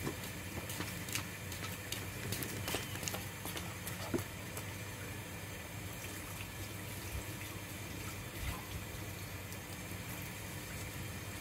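Water running steadily from a tap, with a few light clicks and knocks in the first four seconds.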